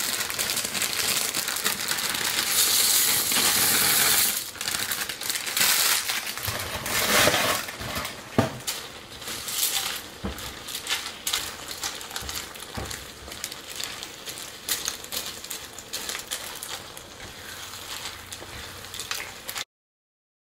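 Crinkling plastic bag as dry pasta is poured into a skillet of ground beef and sauce, then a silicone spatula stirring the pasta in, with scattered clicks and knocks against the pan. The sound cuts off abruptly near the end.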